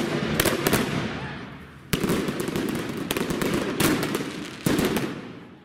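A fountain firework spraying sparks with a steady rushing hiss, broken by a series of sharp bangs scattered through.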